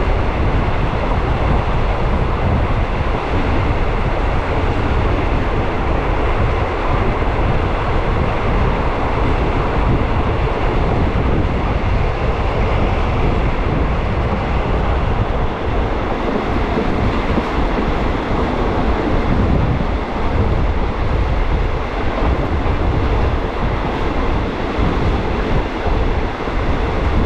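Steady running noise of a moving train: a continuous rumble with a constant hiss over it, without a break.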